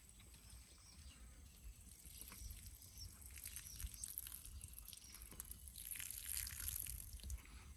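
Faint scattered small clicks and rustling, with a louder rustle about six seconds in, from kittens eating small fish.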